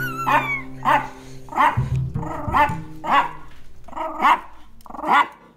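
Chihuahua barking repeatedly, about eight short barks spaced roughly half a second to a second apart. Bass notes of the song continue underneath for the first couple of seconds.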